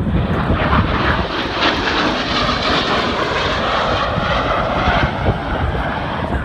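F-16 fighter jet flying past, loud jet engine noise that swells and holds, with a whine that drops in pitch in the second half as the jet passes by.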